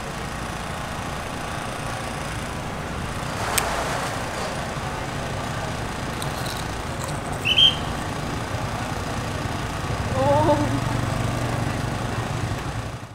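Busy street ambience with motorbike traffic and crowd noise: a steady hubbub, with a sharp click about three and a half seconds in, a brief high-pitched beep just past halfway, and a short voice near the end.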